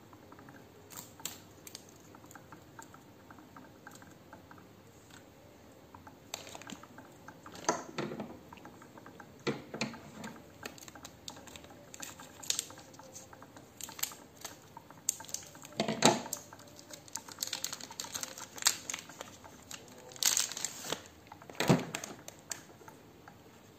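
Clear plastic packaging crinkling and rustling as an ink bottle is pulled out of its bag and handled, with scattered sharp clicks and taps of plastic on plastic. It starts after a few quiet seconds.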